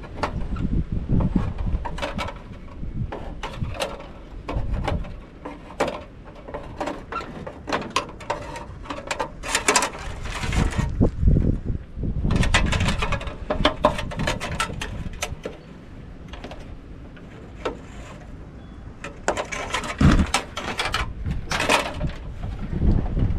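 Sheet-metal light fixture being handled and taken apart by hand: irregular clanks, knocks and rattles of thin metal parts, with denser bursts of clattering now and then.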